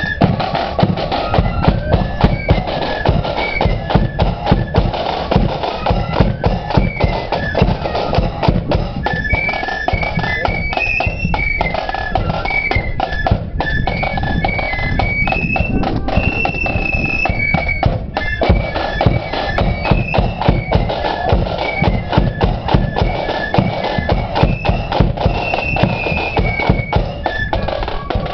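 Marching flute band playing a tune: massed flutes carry the melody over a steady beat from a bass drum and clashing cymbals.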